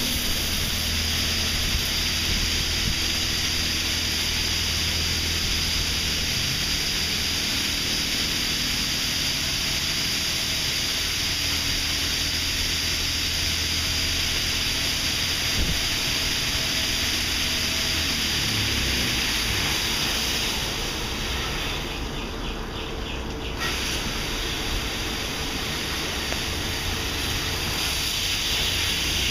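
Belanger Saber SL2 in-bay automatic car wash spraying water onto a car: a steady hiss of spray, with a low hum underneath that fades out about two-thirds of the way through.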